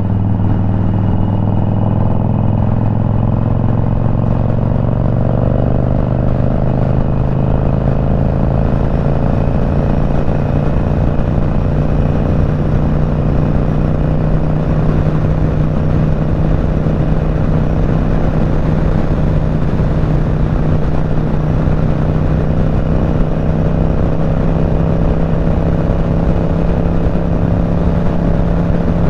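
Motorcycle engine running at highway speed under a steady hiss of wind and road noise, its pitch climbing slowly over the first several seconds as the bike speeds up, then holding steady.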